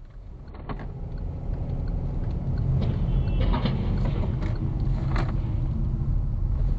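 Steady low road and engine rumble heard from inside a moving car, growing louder, with a few sharp knocks, the clearest about three and a half and five seconds in.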